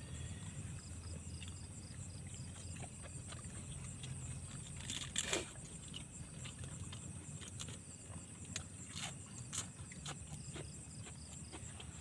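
Insects chirping at night: a steady high trill, with a pulsing call about five times a second near the start and again near the end, over a low steady hum. Scattered soft clicks and one sharper knock about five seconds in.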